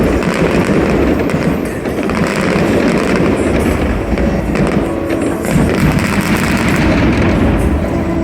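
Aerial fireworks bursting in quick succession: a dense, continuous run of booms and crackles with no break.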